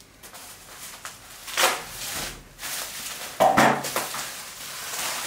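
Bubble wrap rustling and crinkling as long metal windowsill plates are pulled out and unwrapped, with two louder crinkles, one about a second and a half in and one about three and a half seconds in.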